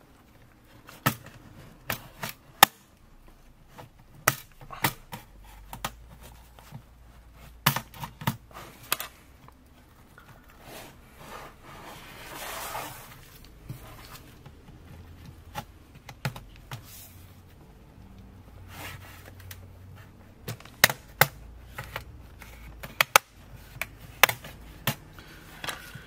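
Plastic retaining clips under a Dell Latitude 5520 laptop's bottom cover snapping loose one after another as the cover is pried free, heard as sharp clicks at irregular intervals with handling and rubbing of the case between them. The clicks are the sign that the cover is releasing properly.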